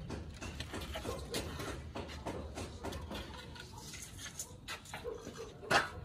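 Wooden planks being picked up and handled, giving scattered light knocks and clatter, with one sharper wooden knock near the end.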